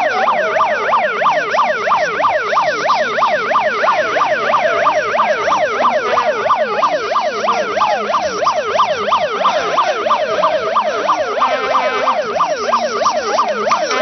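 Electronic siren in a fast yelp, its pitch sweeping rapidly up and down about four times a second.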